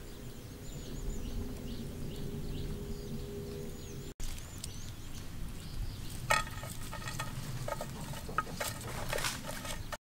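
Outdoor ambience with repeated high chirps over a low steady hum. After a brief cut, light clicks and knocks of a knife, chopping board and bowls being handled, some with a short ringing clink.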